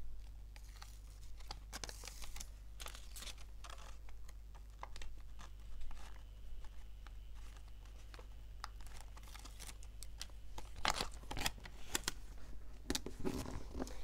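A small handmade paper-and-tape sticker being peeled off its backing with the fingers and then pressed onto a page: irregular soft crackling and rustling of paper and tape, with a cluster of sharper crackles near the end.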